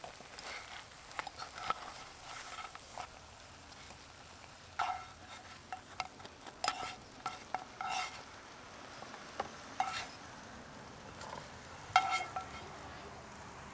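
French toast frying in a GSI Pinnacle nonstick frying pan: a faint steady sizzle, broken by a dozen or so sharp metallic clinks and taps of a utensil against the pan. The loudest clink comes near the end.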